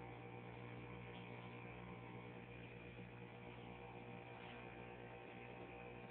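Faint, steady electrical hum with a low buzz, holding one even pitch throughout.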